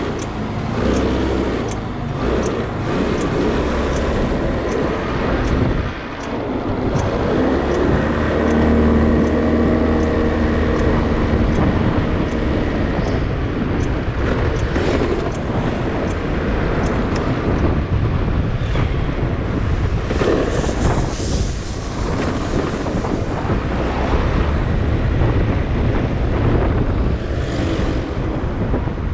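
Motorcycle engine running as the bike pulls away from a stop and rides on, with wind rushing over the microphone.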